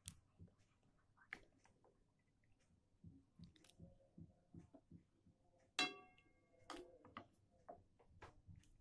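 Faint clinks and taps of a metal ladle in a wok and against a bowl as soup is served, with one sharper ringing clink about six seconds in.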